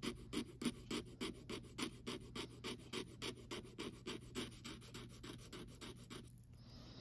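A metal bracelet rubbed back and forth on a black testing stone (touchstone) in short rasping strokes, about three a second, laying down a streak for an acid gold test. The strokes stop about six seconds in.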